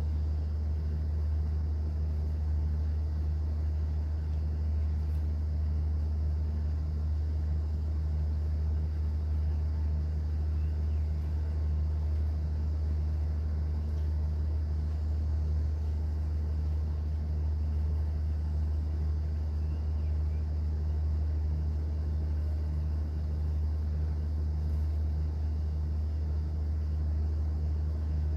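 Cruise boat's engine running: a steady low drone with a fainter hum above it, unchanging throughout.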